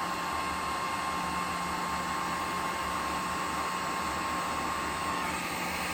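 Electric heat gun blowing steadily, shrinking heat-shrink tubing over freshly soldered wing connectors.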